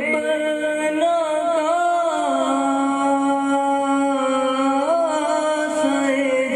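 Men singing a naat, an Urdu devotional poem in praise of the Prophet, in a slow melodic style with long held notes and wavering ornaments.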